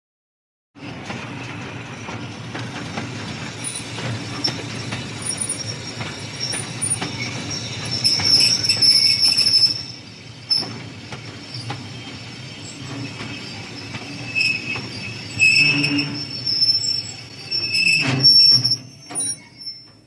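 Steam train braking: a continuous rumble with high, steady brake squeal and scattered clanks. It starts suddenly about a second in, is loudest from about eight to ten seconds in, and surges twice more near the end.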